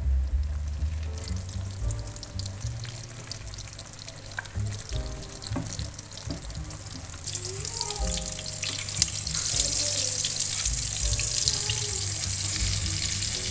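Hot cooking oil sizzling around squares of martabak tahu frying in a pan, the sizzle growing louder about seven seconds in, with background music.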